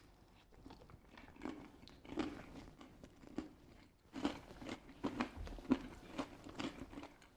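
A man biting into and chewing crunchy garlic bread close to the microphone: a string of short, crisp crunches, more frequent in the second half.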